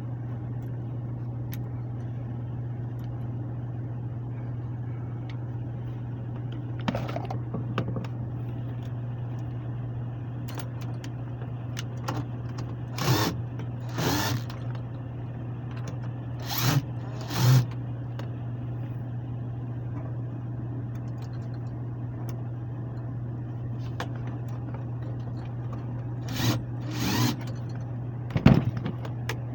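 Steady low hum of a running air handler blower, broken by several short scraping and hissing noises from hand work, the loudest near the end.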